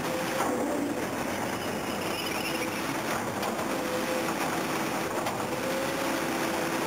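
Hydraulic excavator running with a demolition shear working scrap ship steel: a steady mechanical din of engine and hydraulics, with a wavering tone that comes and goes and a few short knocks of metal.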